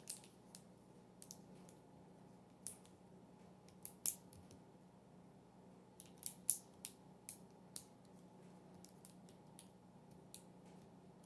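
Plastic links of a crazy track fidget toy clicking as they are snapped together: a dozen or so short, sharp clicks at irregular intervals, most bunched around four seconds in and again from about six to eight seconds.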